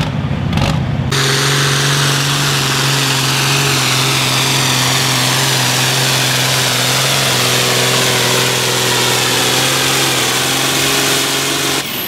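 Pulling tractor's diesel engine running wide open under load as it drags the weight-transfer sled, holding one steady pitch. It cuts in abruptly about a second in.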